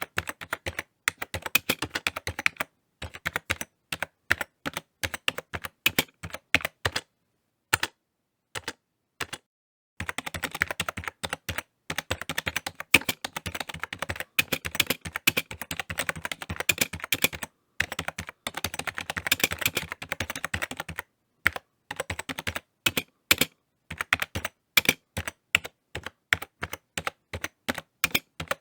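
Typing on a computer keyboard: rapid key clicks in bursts, with a pause of a couple of seconds about eight seconds in, then a long fast run of keystrokes.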